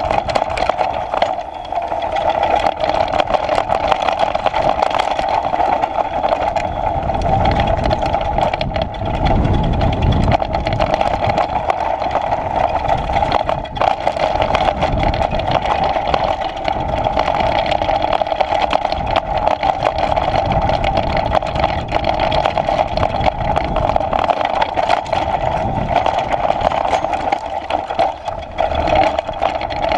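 Off-road motorcycle engine running steadily while riding a rocky dirt trail, with rumble and knocks from the tyres and suspension over stones.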